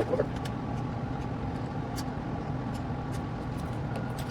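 Steady shop hum with scattered light clicks and clinks from hand work on the engine, and a couple of sharper knocks right at the start.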